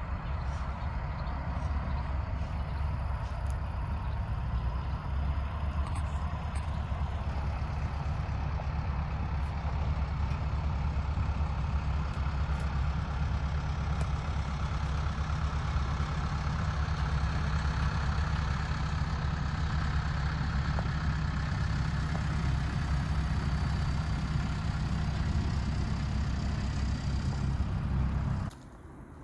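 Steady low rumble of a moving vehicle, with no change in pace, that cuts off abruptly near the end.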